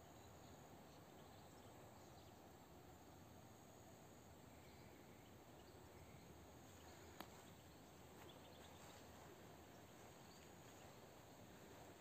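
Near silence: faint outdoor background hiss, with a single brief click about seven seconds in.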